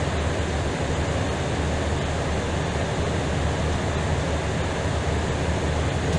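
Steady rushing noise inside an Airbus A320ceo in flight, with a low hum underneath and no change through the stretch.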